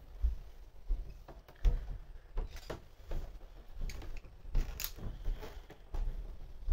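Footsteps at a steady walking pace, heard as regular dull thumps about three every two seconds, with a few sharper clicks among them.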